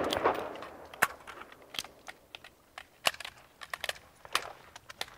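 The tail of rifle fire dies away, then scattered faint sharp clicks and clacks of carbines being handled during speed reloads: magazines dropped and seated, bolts sent home.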